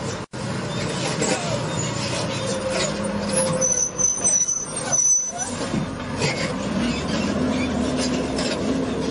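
Sinotruk Howo 6x4 dump truck driving over rough dirt ground: its diesel engine runs under load with road and body noise. A brief high squeal comes around the middle.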